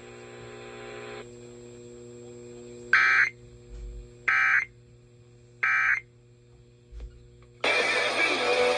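Emergency Alert System end-of-message code: three short, harsh digital data bursts about a second and a quarter apart, marking the end of the alert. Music with strummed guitar cuts in near the end.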